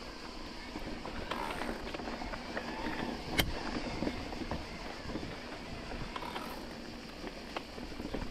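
Electric mountain bike ridden along a dirt trail: the bike rattles and clicks as it goes, with one sharp knock about three and a half seconds in. Cicadas keep up a steady high buzz behind it.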